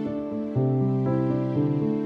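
Gentle instrumental background music: held, pitched notes that change about every half second.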